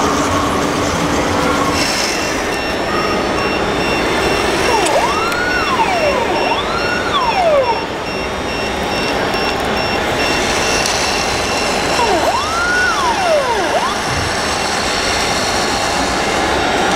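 Whine of radio-controlled model construction machines' small electric motors, rising and falling in pitch about five times, each time for about a second, over a steady din of hall and crowd noise. A fast, high electronic beeping runs alongside and stops about ten seconds in.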